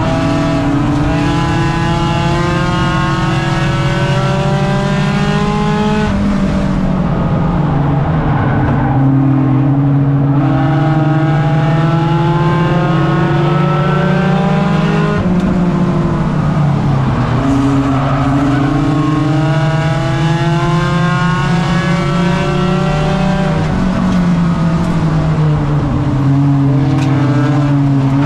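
Race car engine heard from inside the cockpit, climbing in pitch under acceleration and dropping sharply when the throttle lifts for the turns. This happens three times, with a fourth climb starting near the end.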